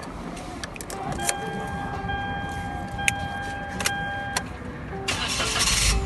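Car engine running with a steady low rumble, scattered sharp clicks, a steady high tone lasting about three seconds, then a burst of hiss near the end.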